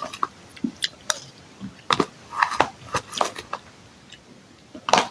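Irregular short clicks and crackles close to the microphone, with a brief murmur about halfway through.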